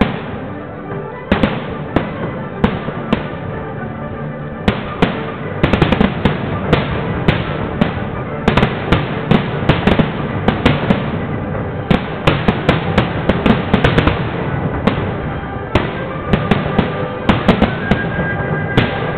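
Aerial fireworks shells bursting overhead, a run of sharp bangs over continuous crackle. The bangs are spaced out at first and become a dense, rapid barrage about five seconds in.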